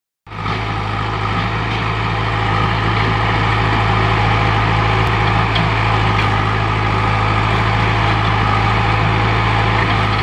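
JCB backhoe loader's diesel engine running steadily with a constant low hum while the rear backhoe arm digs.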